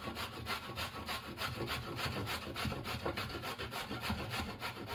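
A peeled carrot being grated on a stainless-steel box grater, pushed up and down in a steady rhythm of rasping strokes against the blades.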